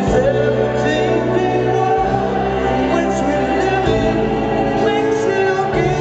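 Live rock band with a male lead vocalist singing over sustained chords that change about every two seconds, heard through a loud arena sound system.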